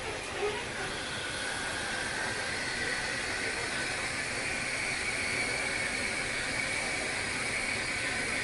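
Steam locomotive venting steam: a loud, steady hiss with a high whistling edge that strengthens about a second in.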